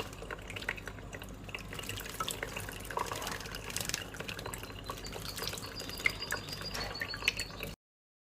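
Water trickling and dripping with many small splashes, as a pet bird bathes itself in running water. The sound cuts off suddenly near the end.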